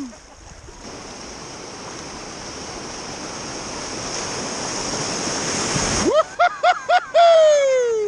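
Whitewater on a spring-swollen river rushing, growing steadily louder over about six seconds as the kayak closes on a standing wave. Then the water noise breaks off abruptly, and four short high-pitched cries are followed by a longer falling one.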